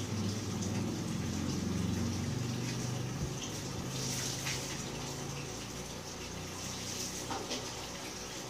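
Steady hum with a constant hiss, the hum wavering and strongest in the first few seconds. A few faint clicks of small parts being handled.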